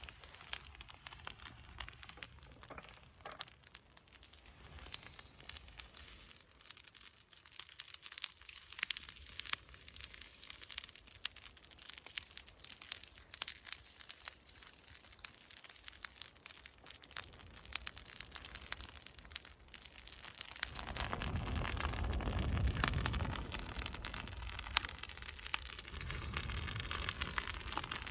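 Straw and leaves burning in an open fire, crackling with many small sharp pops. About two-thirds of the way through, a louder low rush rises for a few seconds and eases off, like a gust of breeze over the fire and microphone.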